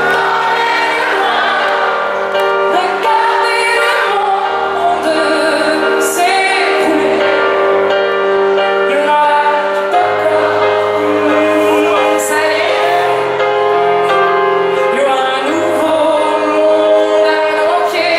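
Live pop song: a woman singing over piano chords, loud and continuous.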